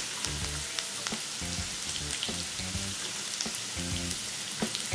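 Julienned carrots sizzling as they go into hot oil with garlic and ginger in a wok: a steady frying hiss dotted with sharp crackles and pops.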